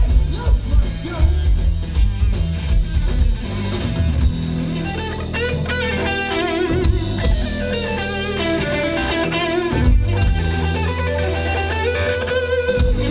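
A live blues-rock band playing loudly: an electric guitar lead with wavering, vibrato-bent notes over bass and drums. The drumming thins out after about four seconds while the guitar carries on.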